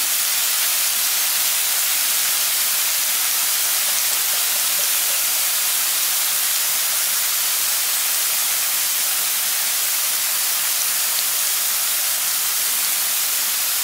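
Minced garlic and ginger frying in hot oil in a pan: a steady, even sizzle.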